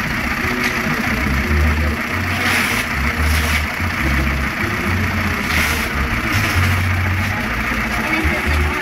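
SunStar SPS 1507 direct-drive industrial pattern sewing machine running, stitching an embroidered design at speed while its clamp frame carries the fabric. A steady mechanical running with a low hum that swells and drops every second or so.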